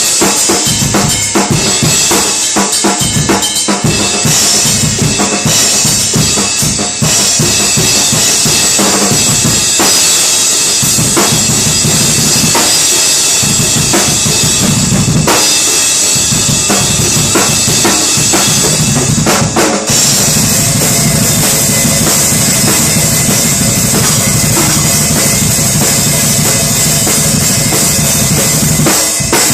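Drum kit played freestyle, with a steady run of kick and snare strokes under a constant cymbal wash. The cymbals grow heavier in the last third.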